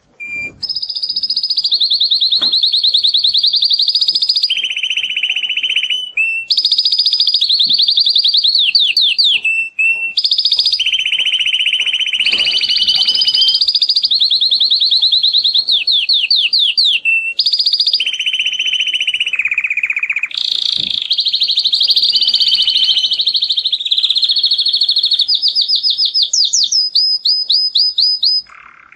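Male domestic canary in full breeding-season song, singing a long, continuous string of rapid trills and rolls. It switches from one trill to another every second or two and pauses briefly just before the end.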